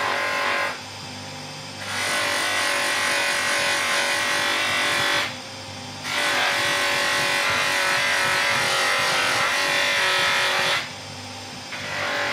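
Electric sharpening machine running with a steady hum while a chisel is held against its dry wheel. The contact gives a loud hiss lasting several seconds at a time, broken by short pauses of about a second, when only the motor hum is left.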